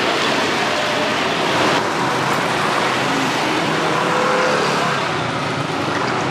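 Steady road traffic noise: vehicles running past.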